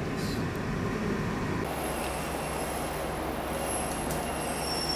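A streetcar running past on its rails, its steel wheels squealing. About one and a half seconds in, the sound changes abruptly and thin, steady high whines set in.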